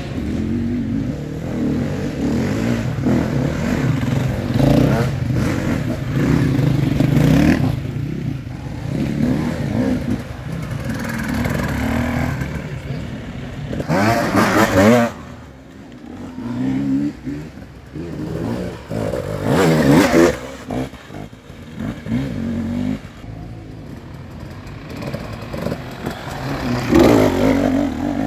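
Enduro dirt bike engines revving and easing off as several bikes pass in turn, pitch rising and falling. The sharpest revs come about halfway through and again a few seconds later.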